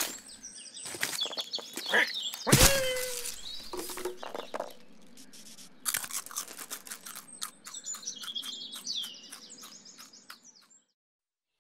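Cartoon Foley: a small bird chirping over and over, a loud crash with a downward-sliding tone about two and a half seconds in, then rapid scratchy clicks with more chirping. The sound cuts to silence shortly before the end.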